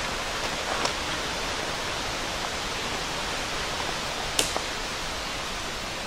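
Steady rushing hiss with a couple of sharp clicks, one about a second in and another past four seconds, as a dome tent's poles and clips are fitted.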